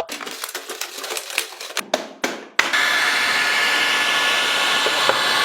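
A few handling clicks and knocks, then about two and a half seconds in a small electric motor starts and runs steadily, with a thin high whine.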